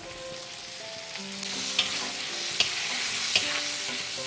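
Tomatoes tipped into a hot iron wok of onion, garlic and chillies, sizzling in the oil and getting louder about a second and a half in as they are stir-fried. A wooden spatula clicks against the wok three times.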